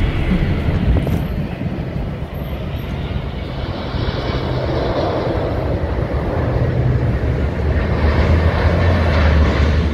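Jet aircraft flying over low, a steady rushing engine noise with a deep rumble that swells a little toward the end.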